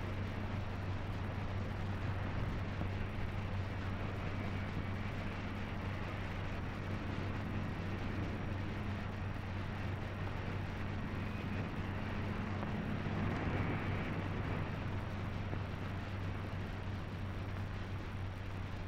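Steady low hum with an even hiss over it, the background noise of a 1930s film soundtrack, with no distinct sound event.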